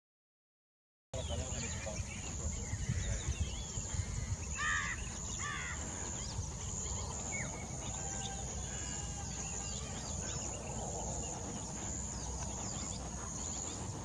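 Silent for about the first second, then outdoor field ambience: a steady high-pitched insect drone over a low rumble, with two short bird calls about four to five seconds in and scattered faint chirps after.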